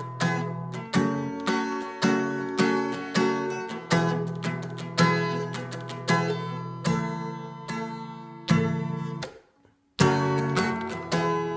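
Acoustic guitar with a capo, strummed chords in a steady rhythm. The sound cuts out briefly about nine and a half seconds in, then the strumming starts again.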